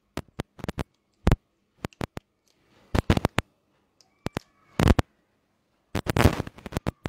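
A dozen or so sharp clicks and taps at an irregular pace, with dead silence between them, and a longer scrape-like noise about six seconds in.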